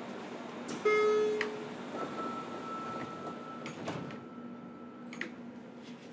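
Inside a JR Kyushu 303 series EMU car, low and steady over a constant hum: a single loud chime-like tone about a second in that fades within a second, then a steady high beep lasting a few seconds, broken once, with a few sharp knocks and clunks.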